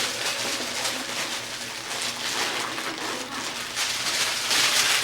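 Rustling and scuffling of Coton de Tulear puppies moving about and handling in their pen, uneven and louder near the end.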